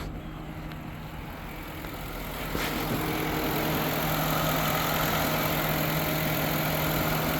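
Car engine idling with a steady hum, turning louder and hissier from about two and a half seconds in.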